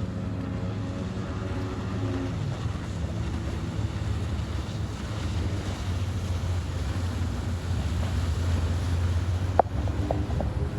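Sea-Doo RX DI jet ski running on the water: a steady low engine hum under wind buffeting the microphone and the wash of water. A single sharp click near the end.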